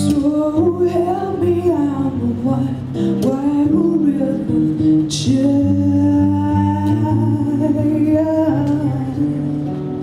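A woman singing to her own acoustic guitar, with sliding, long-held sung notes over steady guitar chords.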